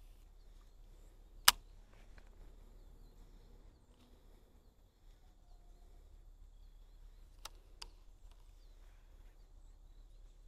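Sharp clicks from a baitcasting reel being worked: one loud click about a second and a half in, and two smaller ones close together near the end. Faint, short, high chirps sound on and off.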